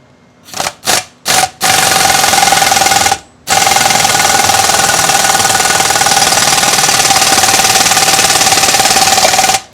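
Pneumatic impact wrench driving a ball joint press to force a ball joint into a control arm: three short blips, then long runs of rapid hammering with a steady whine, with one brief pause about three seconds in.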